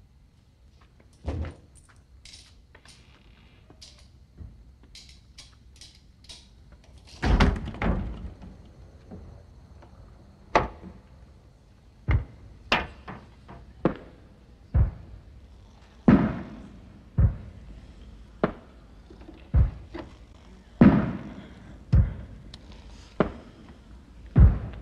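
Dull thuds: a single one about a second in, a heavier pair a third of the way through, then a steady series of about one a second.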